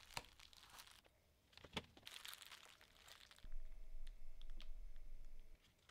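Faint crinkling of bubble wrap and small plastic clicks as a circuit board lying on it is handled and a plug-in screw terminal connector is pushed in. A low steady hum joins about three and a half seconds in and stops shortly before the end.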